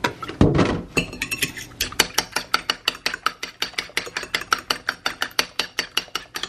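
Metal fork whisking an egg-and-milk wash in a ceramic bowl, tapping against the bowl in a quick steady rhythm of about six or seven clicks a second. A low thump comes about half a second in, just before the whisking starts.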